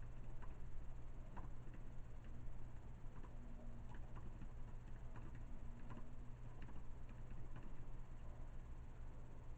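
Faint, irregular light clicks, about one or two a second, over a low steady hum.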